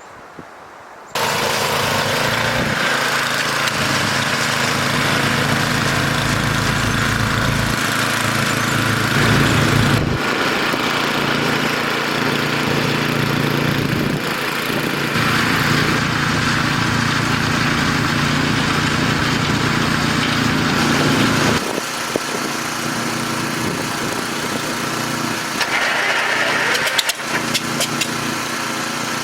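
A snowblower's engine comes in suddenly about a second in and runs steadily, its note shifting a few times as it works.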